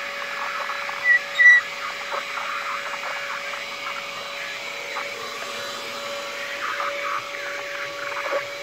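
Compact handheld vacuum cleaner running steadily with its floor nozzle on a tile floor: a steady motor hum over a rush of air. Two short high chirps stand out about a second in.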